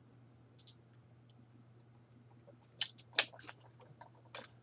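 A low steady hum with a few short, sharp clicks and hissy noises close to the microphone, the loudest a pair of clicks about three seconds in.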